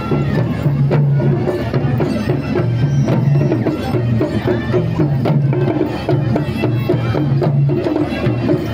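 Traditional music: quick drum and wood-block-like strokes under a melody that steps between held notes.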